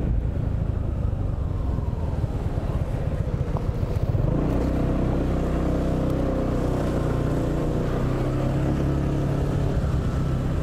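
Motor scooter's engine running as it is ridden along a street and lane, with road and wind noise. From about four seconds in the engine settles to a steady, even pitch.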